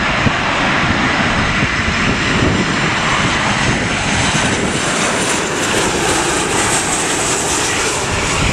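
Jet engines of a Ryanair Boeing 737-800 on short final, a steady loud rushing noise, with a thin high whine coming in over the second half. Wind and rain striking an umbrella over the microphone add to the noise.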